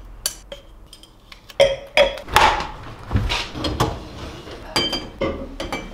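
Glasses and cups clinking and knocking as they are set onto a cupboard shelf, a string of irregular clinks, a few of them ringing briefly.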